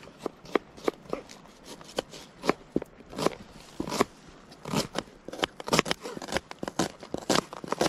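Knives chopping red onions on cutting boards: quick, uneven taps of the blades striking the boards, with two cooks chopping at once. The taps come more thickly after about halfway.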